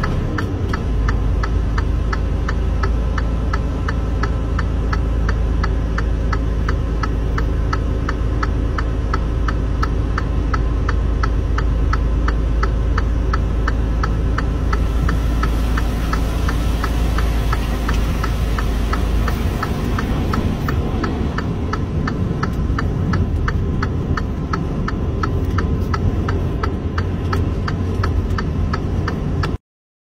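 Inside a truck cab: steady deep engine rumble with a rapid, even ticking, the low rumble easing off about twenty seconds in. The sound cuts off abruptly just before the end.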